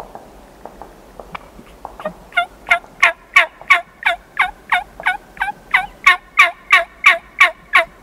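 Wild turkey yelping: a long run of loud, sharply falling notes, about three a second. The run starts soft about two seconds in, then keeps an even beat.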